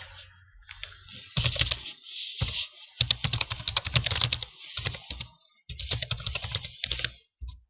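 Computer keyboard typing in quick runs of keystrokes separated by short pauses, as a username and password are entered.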